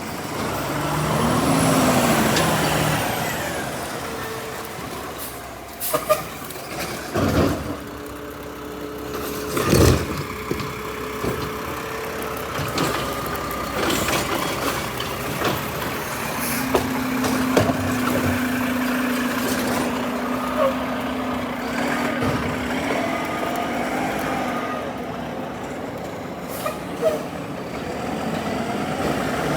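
Garbage truck at work: engine running with air-brake hiss, several sharp bangs in the first third, and a steady hum for a few seconds just past the middle.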